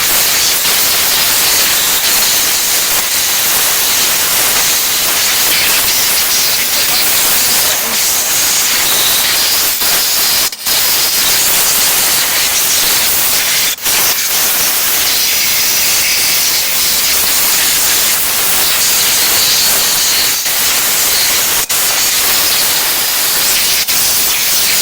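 Compressed-air blow gun hissing loudly and steadily as it blasts dirt and debris off a lawn mower engine's flywheel. The air cuts out briefly three times, as the trigger is let go and squeezed again.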